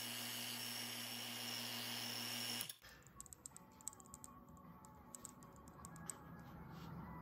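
Robinair HVAC vacuum pump running with a steady hum and hiss, cutting off abruptly about two and a half seconds in. After it, faint scattered clicks and a faint low hum, the spinner in the evacuated chamber barely carried through the rag packing.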